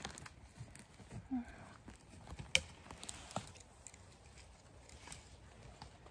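Small folding knife trimming and scraping soil from the base of a freshly picked bolete's stem, with faint rustling of hands and forest litter and a couple of sharp clicks a little past the middle.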